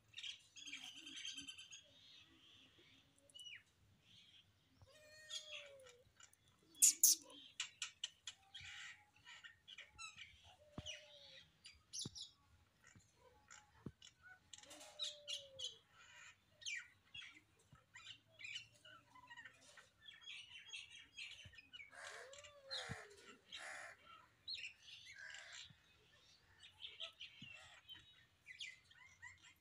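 Small birds chirping: many short, high calls scattered throughout, with a lower arched call recurring every few seconds.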